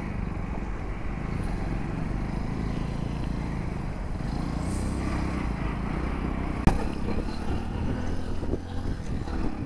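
Passion Pro 100cc motorcycle's single-cylinder engine running steadily under way, with road and wind noise. A single sharp click about two-thirds of the way through.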